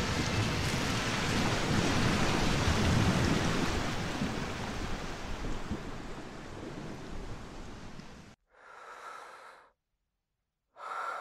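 Rushing water sound, a steady wash of noise that fades over about eight seconds and then cuts off suddenly. After it come a brief faint hiss, a second of silence, and the faint hiss again.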